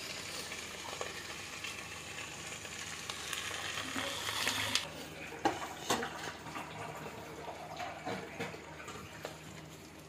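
Chopped ivy gourd frying in oil inside a covered metal pan on a low gas flame, a steady soft sizzle as it cooks under the lid to soften. A few sharp ticks about halfway through.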